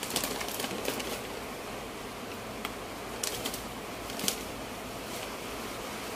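Scattered light clicks and crinkles as graham crackers and their packet are handled, clustered in the first second with a few more around three and four seconds in, over a steady background hiss.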